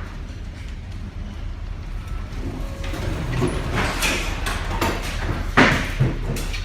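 Ship at sea in a storm: a steady low rumble with rushing surges of wave and spray noise. A sharp, loud surge comes about five and a half seconds in.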